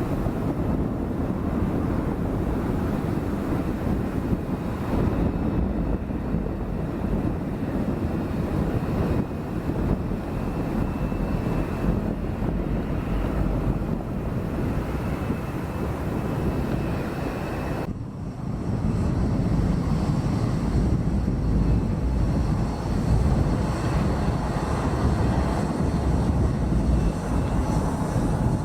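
Boeing 787-9 jet engines running with a steady, deep rumble, and wind buffeting the microphone. About eighteen seconds in the sound cuts off sharply for a moment, then comes back a little louder.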